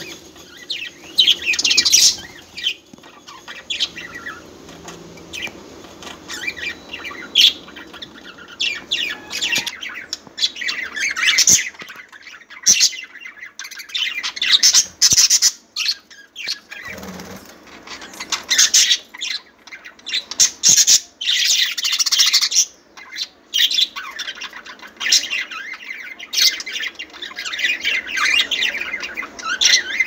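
A flock of budgerigars chirping and chattering, many short high calls overlapping in dense clusters.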